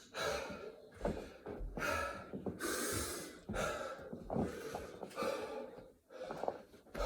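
A man breathing hard and fast, gasping breaths about once a second: out of breath from rapid burpees.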